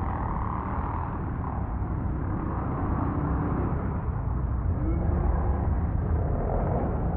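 Several pit bike engines running and revving together as the bikes race round a dirt track inside a large hall, their engine notes rising and falling over a steady drone.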